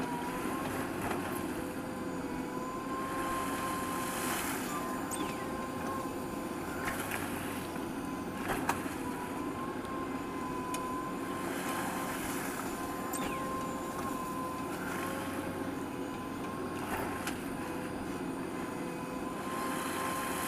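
JCB backhoe loader's diesel engine running steadily under working load, with a constant high whine over the engine noise and a few short knocks, the clearest about halfway through.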